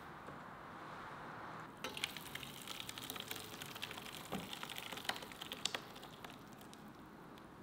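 Thick cornbread batter pouring from a bowl into a round baking pan: soft wet plopping and crackling starting about two seconds in and tailing off about four seconds later.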